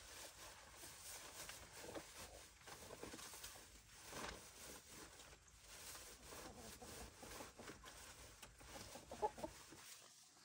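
Chickens clucking faintly.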